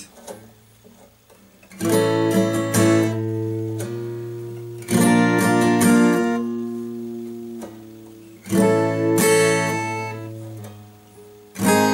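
Steel-string acoustic guitar strummed four times, about three seconds apart, each chord left to ring and fade. A rolling capo is slid along the neck between strums, so each chord sounds at a different fret and pitch.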